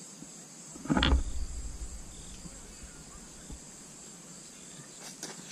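Steady high-pitched chirring of summer insects, with a brief loud thump about a second in.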